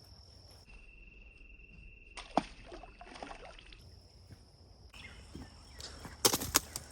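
Insects, crickets or similar, trilling in steady high even tones, one after another at different pitches. A sharp knock comes about two seconds in, and a cluster of louder clicks and rustles near the end, which are the loudest sounds here.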